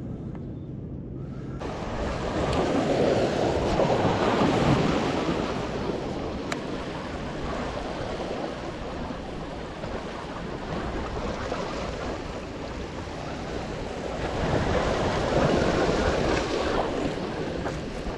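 Small waves washing and breaking against the boulders of a rock jetty, the rush of water swelling twice, first a couple of seconds in and again near the end.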